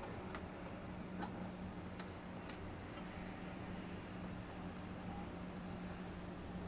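A few faint, irregular clicks, about four in the first half, over a steady low hum.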